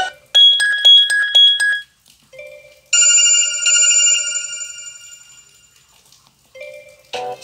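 Phone ringtones played one after another: a quick electronic trill of alternating high beeps, then a single bell-like chime that rings out and fades over about three seconds. A tuneful ringtone starts near the end.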